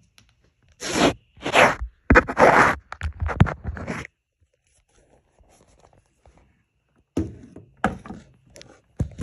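Scraping and rustling handling noise from the recording phone being moved and rubbed about, in several loud bursts over the first four seconds, then a few shorter scrapes and knocks near the end.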